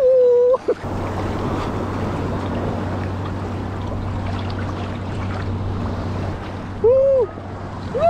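Shallow sea water sloshing and washing around a person wading out through small waves, under a steady low hum. A short held vocal 'woo' comes at the very start and another about seven seconds in.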